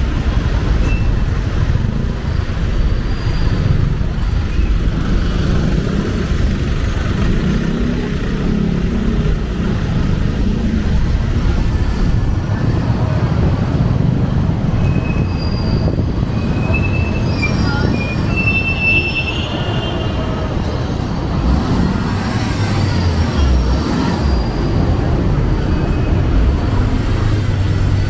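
Steady rumble of city street traffic, vehicle engines and tyres, with a few brief high squeals about halfway through.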